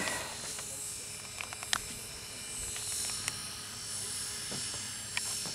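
A helicopter flying, a steady whine over a hum, with a few faint clicks about a second and a half in.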